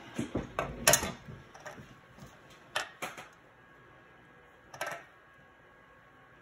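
Small metal clicks and taps of jewelry pliers being picked up and worked on a jump ring: a few sharp clicks, the loudest about a second in, others near three and five seconds.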